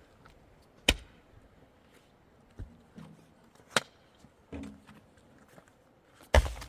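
A tool striking wood: three sharp blows a few seconds apart, the last the loudest, with a couple of lighter knocks between them.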